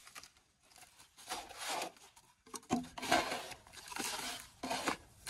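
Thin black plastic nursery pots handled and pulled from a stack, then a cut-off plastic bottle scooping soil and pouring it into a pot: plastic rustling and gritty scraping in several short bursts.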